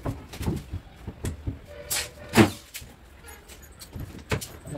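Knocks and clatter of a wooden cupboard door being handled and set into place on its hinges, with a single louder thump about two and a half seconds in.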